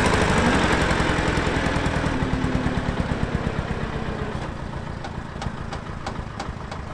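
Diesel site dumper's engine running with a rapid, even chugging beat; the revs rise briefly about half a second in, then the sound fades steadily as the dumper moves off.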